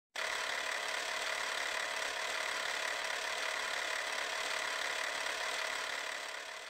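Steady mechanical running and rattling sound effect under an intro logo animation. It starts abruptly and fades out near the end.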